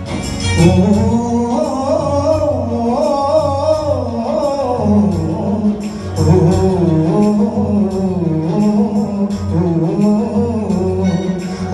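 Live gospel band playing through PA speakers: a man singing a melody over guitar and keyboard with a steady beat.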